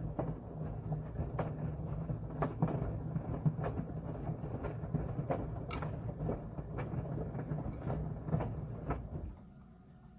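Washing machine running: a steady low motor hum with repeated knocks and clunks as the load turns in the drum. About nine seconds in, the sound drops away sharply to a faint hum.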